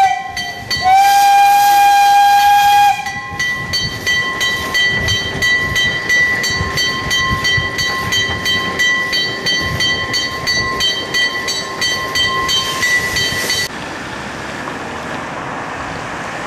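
Narrow-gauge steam locomotive's whistle: one blast ending about half a second in and a second from about one to three seconds. It is followed by about ten seconds of rapid, even ringing, typical of a level-crossing warning bell, as the train passes the crossing.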